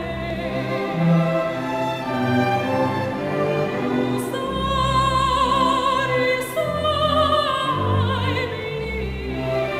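A woman singing in classical operatic style with a wide vibrato, accompanied by an orchestra of violins, cellos and double bass.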